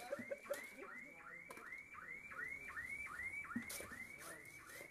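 An electronic alarm repeating a short rising whoop, about three a second, evenly and without pause. A few sharp knocks fall about a second and a half in and near the end.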